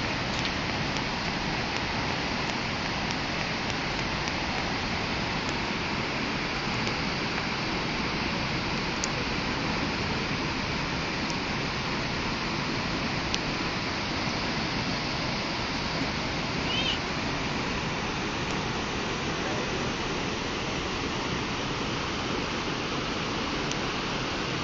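San Rafael waterfall: a steady, unbroken rush of falling water.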